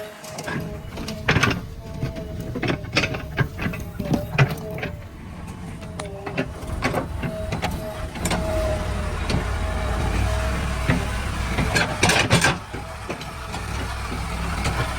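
JCB backhoe loader at work: the engine running with a string of sharp clanks and knocks from the bucket and arm. The engine grows louder about eight seconds in.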